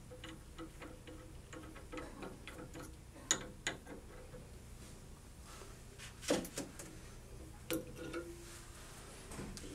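Faint, scattered metallic clicks and ticks as a threaded sample holder is slowly unscrewed by hand from a copper high-temperature cryostat interface gripped in an adjustable wrench, with a few sharper clicks here and there.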